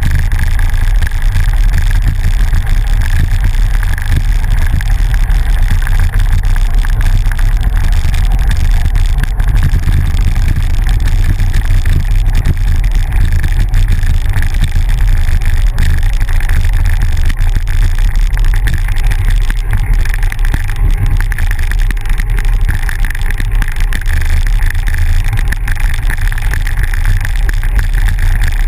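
Steady, loud wind rumble on the microphone of a bicycle-mounted camera, with tyre noise from riding a dirt road.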